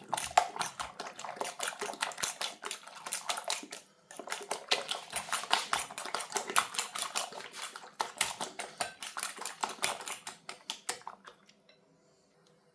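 Raw eggs being beaten in a bowl with an eating utensil: a fast run of clicking strokes against the bowl. There is a brief pause about four seconds in, and the beating stops near the end.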